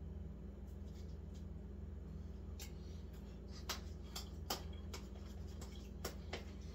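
Faint clicks and light scrapes of a utensil against a plastic tub of chicken salad as it is stirred and tasted. There are several separate clicks in the second half, over a steady low hum.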